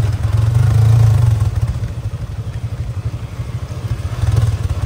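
Vehicle engine running on the move, a low rapid pulsing that grows louder about a second in and again near the end.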